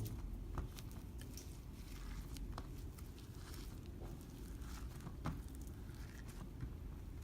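Slime being kneaded and pressed by hand, giving scattered small sticky pops and crackles, a few a second at uneven spacing, over a steady low background rumble.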